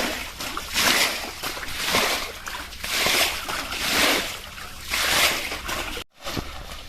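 Pond water being scooped and thrown out, a splash and slosh about once a second, with a brief break about six seconds in.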